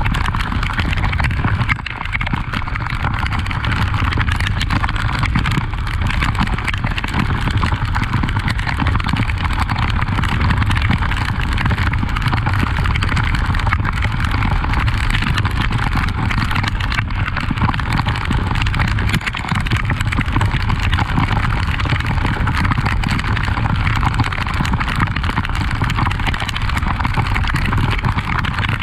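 Honda XRE 300 single-cylinder motorcycle being ridden, its engine running steadily under a loud, constant rush of wind noise on the microphone.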